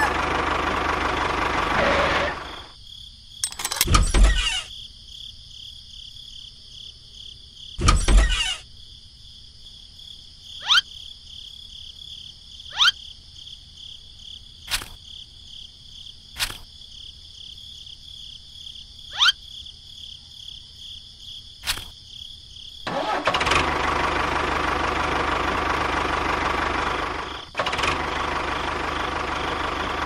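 A model tractor's small motor running with a loud, dense whirring noise, which stops after about two and a half seconds and starts again for the last seven seconds. In the quieter stretch between, there are two heavy knocks and then six short taps as small cardboard boxes are handled and set into a toy trailer.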